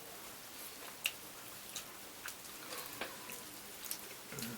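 Faint, scattered clicks and small smacking sounds of people eating a seafood boil, chewing and handling shells, the sharpest click about a second in.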